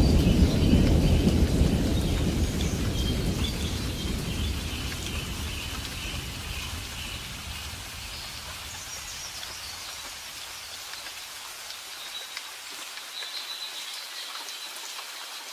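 Steady rain falling, with a low rumble of thunder at the start that fades away over the first ten seconds or so.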